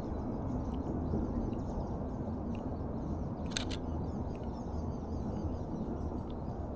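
Canon EOS RP camera shutter firing once about halfway through, a quick double click, over a steady low background rumble.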